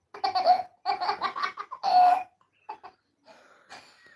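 A young child laughing in three high-pitched bursts over the first two seconds or so, followed by a few faint clicks and rustles.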